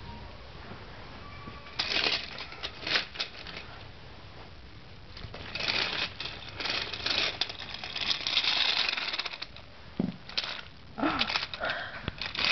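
Plastic toy train (a Thomas the Tank Engine toy and its truck) pushed by hand along plastic toy track, its wheels rattling and clacking over the track in bursts, loudest in a long stretch mid-way.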